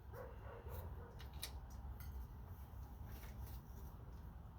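A few faint, light metallic clicks and taps from hands working parts, over a low steady hum.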